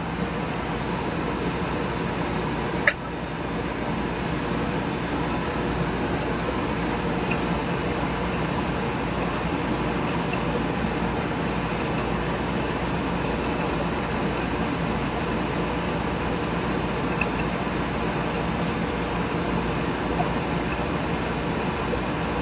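Steady machine-like hum and hiss, with one sharp click about three seconds in.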